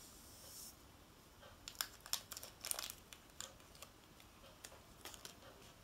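Small cut-open plastic candy-kit sachet crinkling as it is handled and squeezed out over a plastic tray, a scatter of light crackles and clicks, the busiest about two to three seconds in.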